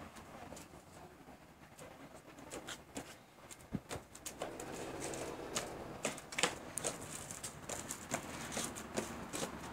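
Quad roller skates rolling on a paved path, the wheels clattering in irregular clicks and taps that get busier after the first couple of seconds.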